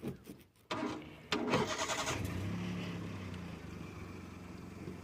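A small hatchback's engine being started: the starter cranks briefly about a second in, the engine catches with a short rev, then settles into a steady idle that gradually quietens.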